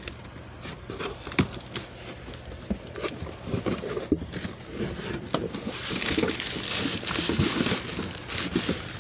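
Cardboard shipping box being handled and its flaps opened, with small knocks and scrapes, then a denser crinkling rustle of the plastic packing material inside from about six to eight seconds in.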